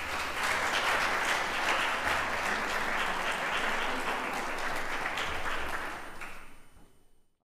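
Congregation applauding, the clapping fading out near the end.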